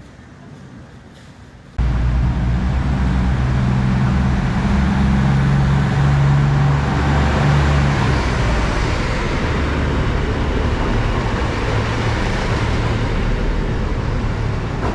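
Steady vehicle running noise: a low engine drone under a rumbling hiss, starting abruptly about two seconds in after a quieter stretch.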